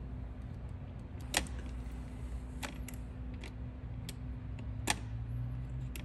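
A metal paper clip clicking and tapping against the terminals of a ride-on toy's plastic wiring connector: a few short sharp clicks, two louder ones about three and a half seconds apart, as the red and orange power-button wires are bridged to bypass the switch.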